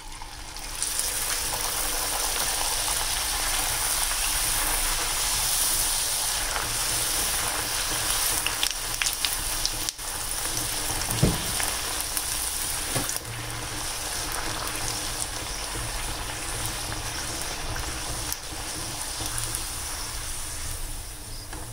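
Potato puri deep-frying in hot oil in a wok: a loud, steady sizzle that starts about a second in as the dough goes into the oil and eases a little past the middle. A couple of light knocks come around the middle.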